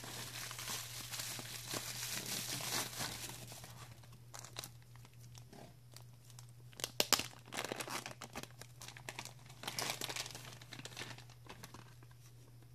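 Bubble wrap and a thin plastic bag crinkling and rustling as they are pulled off a battery pack, steady at first, then in scattered sharp crackles, the loudest about seven and ten seconds in.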